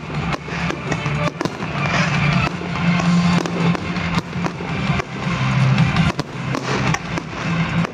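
Aerial fireworks bursting in quick succession, a string of sharp bangs and crackles, with music playing underneath.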